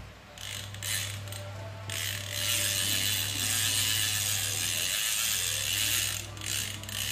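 Okuma Cavalla 5NII lever drag reel being cranked by hand, giving a fast ratcheting click: a few short turns at first, then a steady run of clicking for about four seconds, then a couple more short turns near the end.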